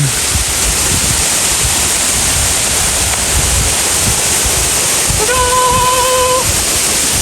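Waterfall rushing, a steady loud wash of falling water. About five seconds in, a single held pitched tone sounds over it for about a second.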